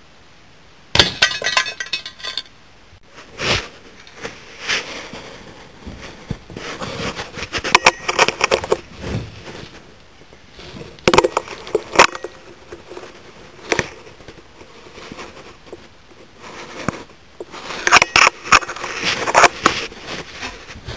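Irregular handling noise from about a second in: sharp clicks, metallic clinks and rustling as a Slavia 630 break-barrel air rifle and the camera are moved about.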